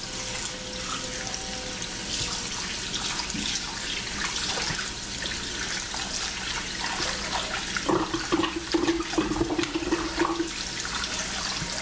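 Kitchen tap running into a plastic bowl of raw chicken pieces, with water splashing as a hand rubs and turns the pieces under the stream. The splashing gets louder and choppier about eight seconds in.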